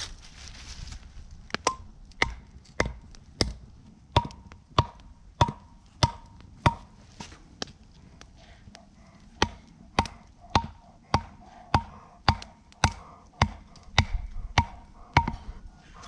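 Steady chopping blows into wood, a little under two a second, each with a short ringing note, pausing for about two seconds midway.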